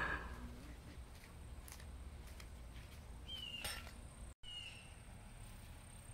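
Faint outdoor ambience: a steady low rumble with a few short bird chirps, one about three seconds in and another just after a brief dropout in the middle.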